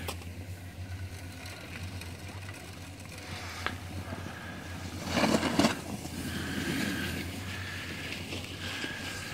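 Skis sliding and scraping over snow as skiers pass, with a louder rush of scraping about five seconds in, over a low steady rumble.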